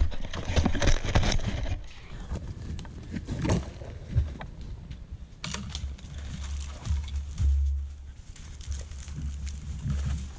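Camera being handled and set down on a dry forest floor, with knocking and rustling for the first couple of seconds. Then footsteps crunch and snap over crispy-dry needles and twigs near the microphone, under a low rumble from about six seconds in.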